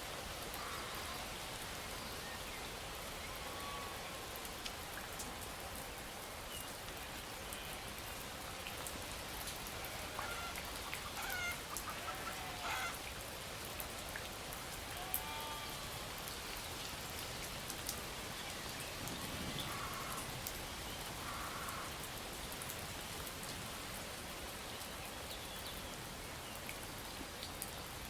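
Steady rain, with a few short animal calls now and then.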